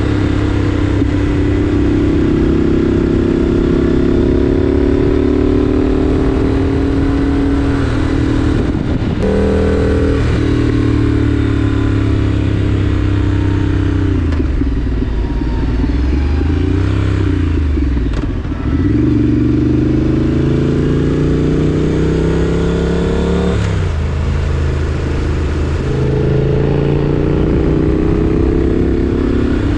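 Triumph Street Scrambler's 900cc parallel-twin engine pulling the bike along a winding road. The engine note climbs and falls with the throttle, with sudden steps in pitch at gear changes about nine seconds in and again about three-quarters through, and a dip in the revs in the middle before it builds again.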